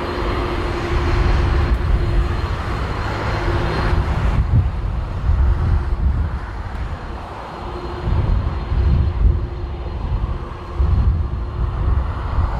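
Jet airliner engines running on a landing approach, with a steady whine and rushing hiss that thins out about four seconds in. Gusty wind buffets the microphone with uneven low rumbling throughout.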